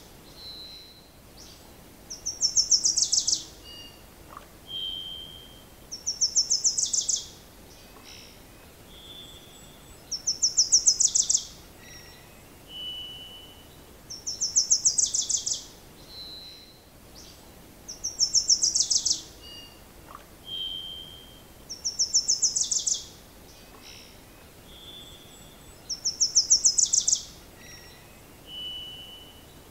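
A small songbird singing a fast, high trill about a second long, repeated every four seconds or so, with short single whistled notes between songs over a faint steady hiss.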